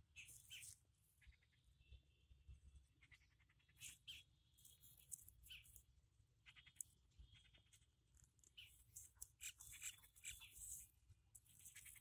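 Faint chirping calls of small animals, short, rapid-pulsed and irregular, overlapping one another throughout, over a low steady rumble.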